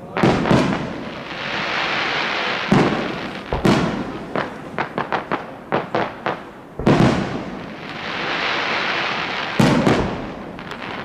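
Aerial fireworks bursting: several loud bangs, a quick run of sharp cracks in the middle, and a dense hissing crackle between the bursts.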